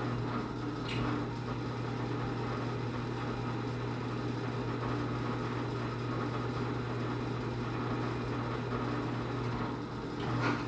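Electric drill running with a steady hum as a freshly sharpened twist bit bores through steel, cutting easily.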